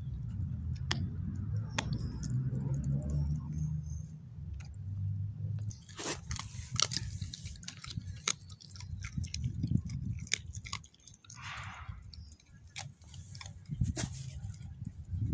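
A beagle chewing and crunching a raw chicken breast bone: irregular sharp cracks of bone between her teeth, coming thick and fast in the second half. A low rumble runs under the first few seconds.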